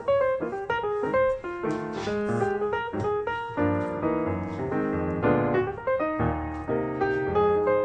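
Background piano music, a lively run of quick notes with a steady beat.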